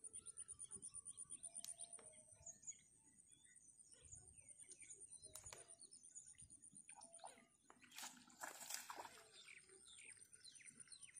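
Faint open-wetland ambience: small birds chirping here and there over a thin, very high, evenly pulsing buzz, with a few sharp clicks and a brief louder rustle about eight seconds in.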